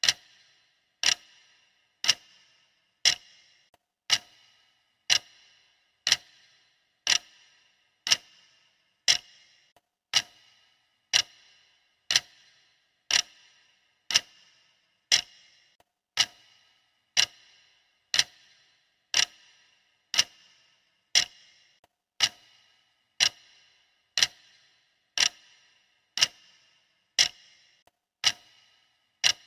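Clock ticking steadily, about one sharp tick a second, each with a brief ring.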